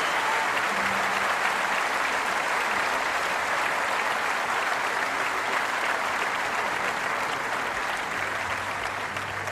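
Large audience applauding, a dense, even clapping that eases slightly near the end.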